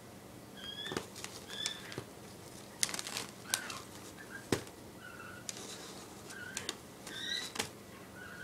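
A cat rummaging in a gift bag, the tissue and wrapping paper rustling and crackling in short sharp bursts, with several brief high chirps in between.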